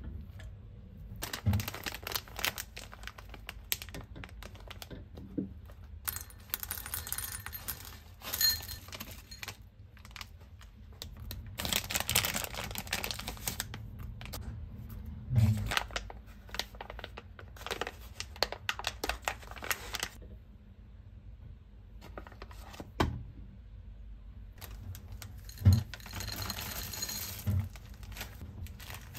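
Kitchen handling sounds in a run of separate bursts with quiet gaps: a spatula scraping and stirring chopped chocolate in a glass bowl, light clinks and knocks of food going into a glass bowl, and the crinkle of a plastic zip-top bag near the end.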